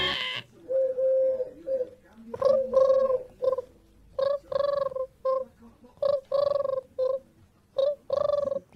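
A dove cooing, a short note, a longer one and a short one in each phrase, the phrase repeated about every two seconds.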